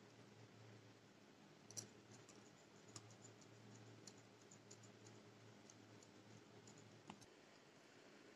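Near silence with a few faint, short clicks spread over several seconds: a wire whisk touching the side of a glass bowl while stirring a thick mango-and-cream mixture.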